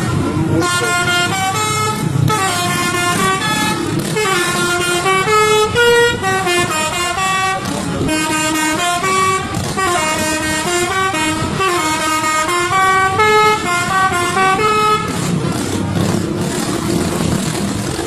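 Bus telolet horn, a multi-tone air horn, playing a quick tune of stepping notes, stopping about three seconds before the end, with the bus engine and road noise underneath and after.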